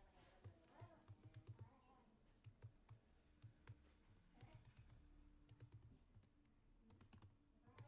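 Computer keyboard typing: faint, irregular key clicks in quick runs with short pauses between them.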